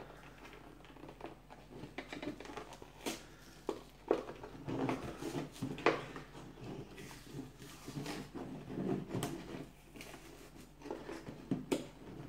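Fingers picking and pulling at a toy's cardboard-and-plastic packaging: irregular small crinkles, clicks and rustles.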